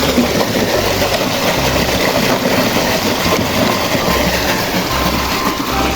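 Steady rushing of water sprayed over a muddy toy to wash it clean, with a low beat repeating about once a second beneath it.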